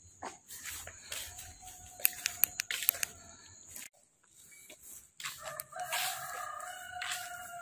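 A rooster crowing: a long drawn-out crow that starts about five seconds in, a fainter shorter call earlier, and a few sharp clicks in between.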